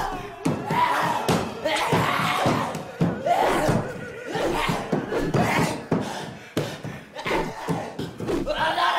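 A man yelling and crying out in repeated bursts without words while swinging a sword, with several sharp thuds and slams among the cries.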